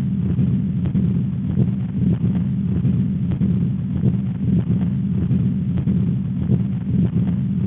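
Heart sounds heard through a stethoscope: a repeated beat about once a second over a steady low rumble.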